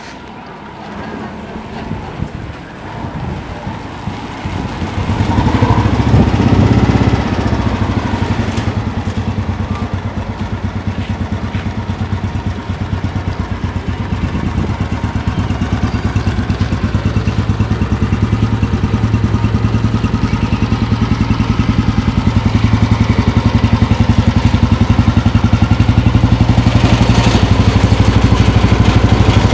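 Royal Enfield Bullet 350's single-cylinder four-stroke engine starting about five seconds in after some irregular knocks, revving briefly, then idling with a steady, even beat.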